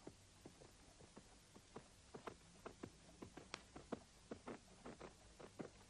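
Faint, slow hoof steps of a horse walking through snow, a few soft thuds a second, growing louder toward the end.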